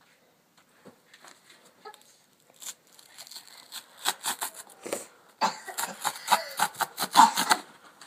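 Cardboard packaging being torn open by hand: a few faint clicks at first, then a quick run of crackling rips, loudest from about five and a half to seven and a half seconds in.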